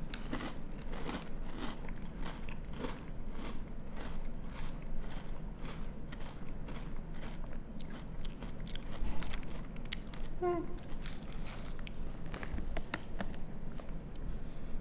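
Close chewing of crunchy toasted cinnamon squares cereal in milk: a steady run of crunches, about three a second.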